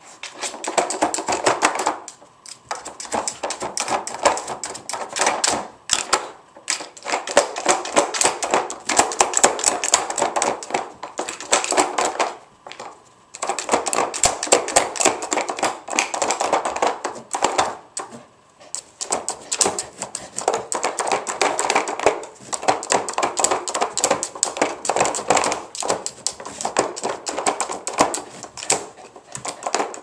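A dog pawing and nosing at a hard plastic treat-puzzle toy: rapid clicking, clattering and scraping of claws and plastic, in spells of a few seconds with brief pauses.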